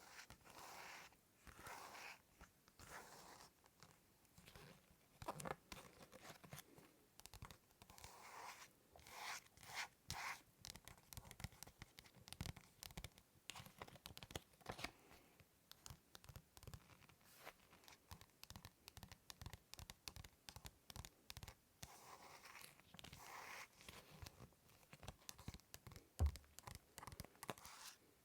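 Soft, close-miked ASMR scratching and rubbing on an object, a rapid run of small clicks and short scratchy swishes, with one sharper knock near the end.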